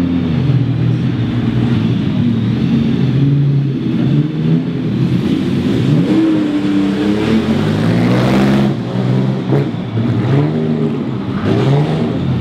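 Car engines running and revving, rising and falling in pitch, with one louder surge about eight seconds in, as of a car passing.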